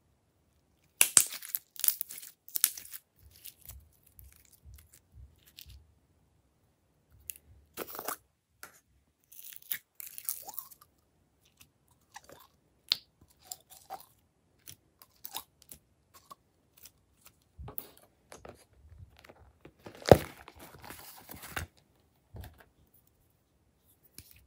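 Clear glitter slime stretched, squeezed and dropped by hand, giving sticky crackles, clicks and pops in scattered bursts. The loudest bursts come about a second in and around twenty seconds in.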